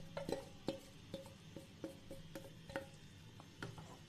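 A utensil knocking and scraping against a metal kadai as chicken pieces are tipped into a thick masala and mixed in: a run of light knocks, about two or three a second, each with a short ring.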